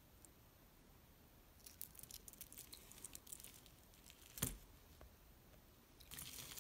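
Faint clicking of the silver and glass charms on a Pandora bracelet knocking together as it is handled, with one louder knock about four and a half seconds in.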